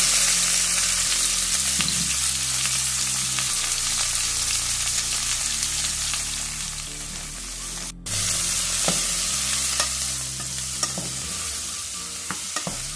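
Diced potatoes and cauliflower sizzling loudly as they hit hot oil in a saucepan, then being stirred, with a few clicks of the spoon against the pan near the end. The sizzle cuts out for an instant about eight seconds in.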